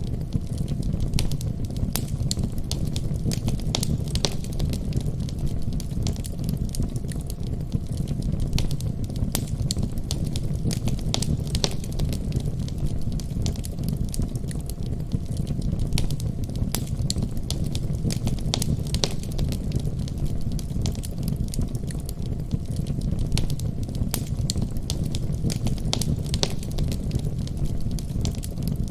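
Fireplace fire crackling: scattered sharp pops over a steady low rumble.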